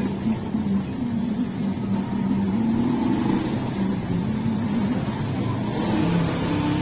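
Sewing machine running, its motor pitch stepping up and down as the speed changes.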